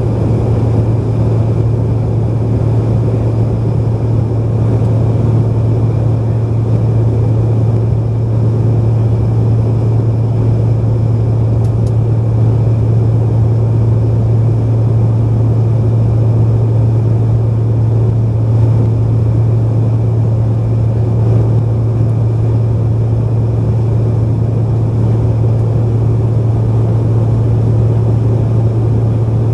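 Steady cabin drone of a Bombardier CRJ-900 regional jet in cruise: its rear-mounted General Electric CF34 turbofans and the airflow over the fuselage, with a strong, even low hum and no change in pitch.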